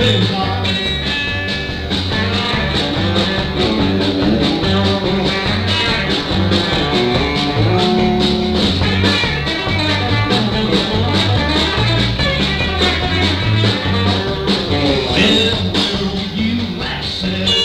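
Country band playing live, with guitar and a moving bass line over a steady beat.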